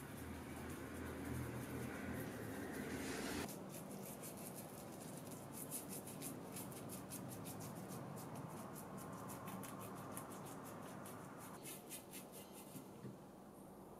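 Paintbrush bristles working paint into a carved mirror frame: a soft scrubbing swish at first, then, from about three and a half seconds in, a run of quick light taps and brushing as the brush is dabbed into the carvings.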